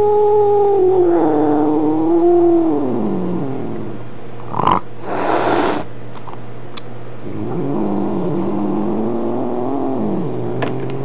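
Maine Coon cat yowling in complaint, the angry cry of a cat upset at a visiting kitten. A long drawn-out yowl falls away about three seconds in, a short sharp burst of noise comes around five seconds in, and then a second, lower yowl follows.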